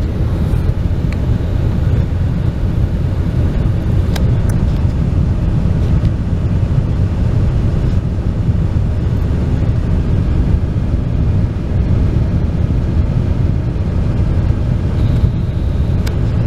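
Steady low rumble of a vehicle engine idling, heard from inside the cabin.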